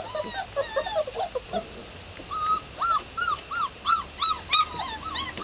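Red Standard Poodle puppies whimpering: scattered soft whines at first, then from about two seconds in a quick series of short high rising-and-falling whines, about three a second.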